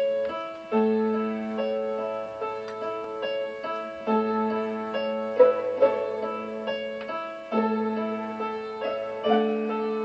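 Instrumental orchestra music playing back from a vinyl record, with a piano-like keyboard sounding notes and chords that change about every second and a half.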